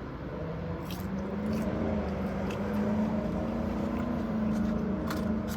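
A vehicle engine running steadily with a low hum that swells a little, then eases off near the end, with a few faint clicks.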